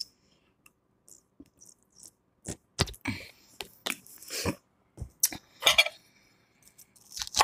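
Ranch dressing squeezed from a plastic squeeze bottle onto salad: a string of short squishes and clicks with quiet gaps between them.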